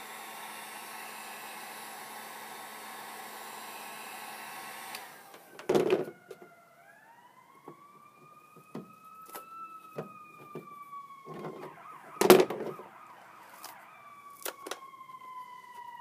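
A heat gun blows steadily and is switched off about five seconds in. Then come clicks and a few sharp knocks of a screwdriver prying at the plastic tailgate-handle housing to free a chrome medallion stuck on with heat-softened double-sided tape, the loudest knock about twelve seconds in. Under them a faint siren wails, rising and then slowly falling.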